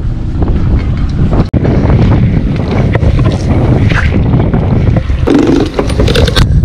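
Wind buffeting the microphone over a steady low rumble of wind and sea water against the boat's hull. Near the end, a run of metallic clicks and rattles as the anchor chain is handled at the bow.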